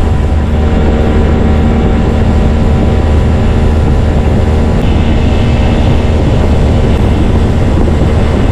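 Boat's outboard motor running steadily at speed, a loud, even drone with water rushing past the hull.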